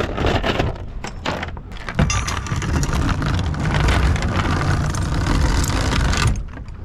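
Galvanized anchor chain rattling and clanking as it is paid out by hand over a boat's bow roller, with a sharp clank about two seconds in, over a steady low rumble.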